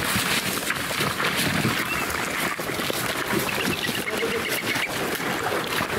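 Footsteps splashing and sloshing through shallow river water, with a faint run of high chirps about halfway through.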